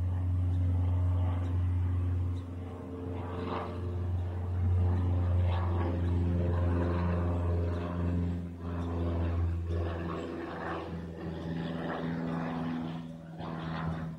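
An engine droning: a steady low hum with a few higher tones above it that drift a little in pitch.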